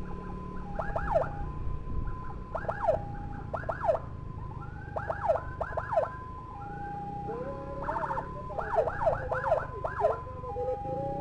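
Emergency sirens in a moving ambulance escort convoy: a two-tone hi-lo wail alternates with clusters of quick, falling-pitch chirps several times. A second, lower siren joins about seven seconds in, over the steady rumble of motorcycle engines and road noise.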